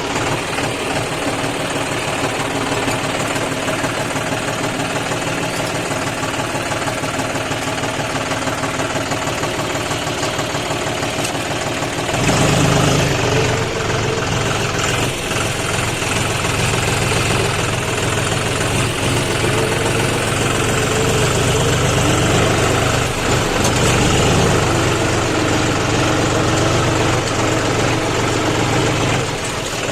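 John Deere tractor diesel engine running with a steady pulsing beat, then revving up and running louder from about twelve seconds in as the tractor works its loaded trailer over soft ploughed ground.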